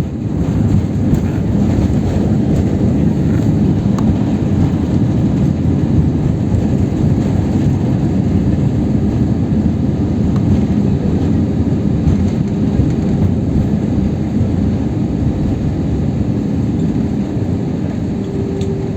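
Steady, loud rumble inside a Vueling airliner's cabin as the plane rolls along the ground just after landing: engine and wheel noise on the runway. A steady hum comes in near the end.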